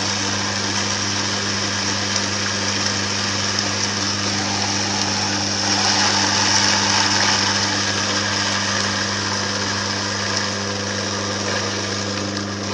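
Electric auger juicer running steadily with a low hum, grinding cacao nibs into liquid cocoa mass. It gets a little louder about six seconds in.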